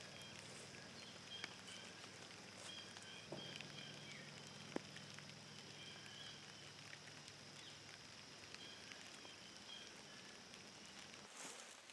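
Faint rain pattering, with a few sharp light ticks and faint short high chirps over a steady faint hiss.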